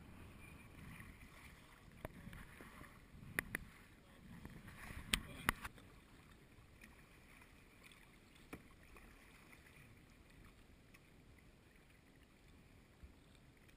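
Water sloshing and splashing against a plastic sit-on-top kayak as it is paddled, busier in the first half and calmer after. Scattered sharp knocks come through, the loudest two pairs between about three and six seconds in.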